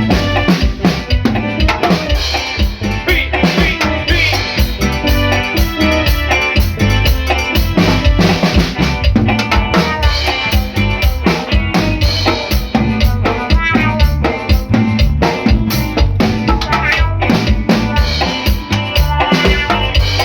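Drum kit playing a steady beat with bass drum and snare, with other pitched instruments playing along.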